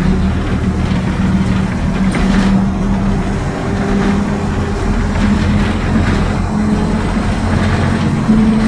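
Mercedes-Benz OF-1722M bus under way: low running drone with a steady whine from the rear differential, which the uploader calls 'roncando' (droning). The whine wavers slightly and grows a little louder and higher near the end.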